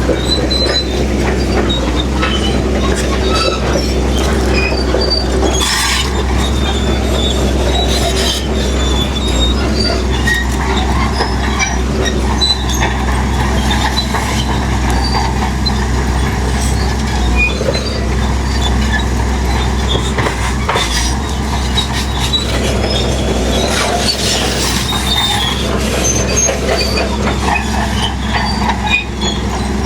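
Crawler bulldozer working: its diesel engine runs steadily under load while the steel tracks squeal and clank, with scattered knocks throughout.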